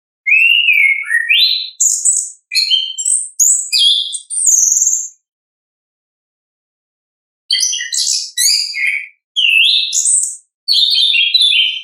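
Orange-headed thrush (anis kembang) singing in the full 'ngeplong' style, a song used to coax other thrushes into singing. It sings two long phrases of quick, varied high whistles and warbles, with a pause of about two seconds between them.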